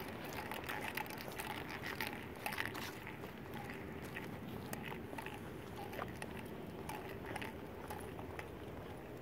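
Footsteps crunching on sandy ground, irregular clicks and scuffs about once or twice a second.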